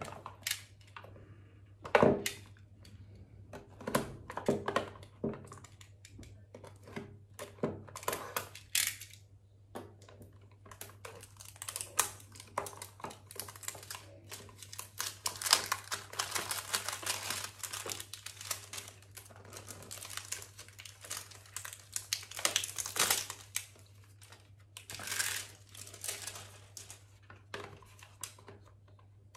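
Hands opening a small cardboard product box: packaging crinkling and tearing, with clicks and taps of the box and a box cutter handled on a table, the loudest a sharp tap about two seconds in. A steady low electrical hum underneath.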